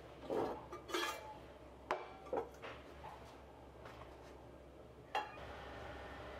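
An enamel saucepan clinking and knocking as it is handled and set on a gas stove's grate. About five seconds in there is a sharp click, then the steady low hiss of the lit gas burner.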